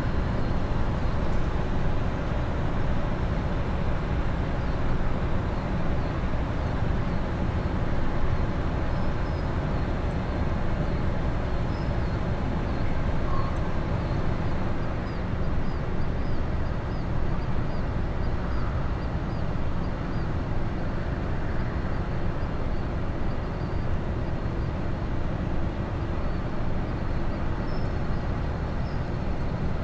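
Steady low rumble of a large ship and its electric towing locomotives moving through a canal lock, with a few faint steady high-pitched tones.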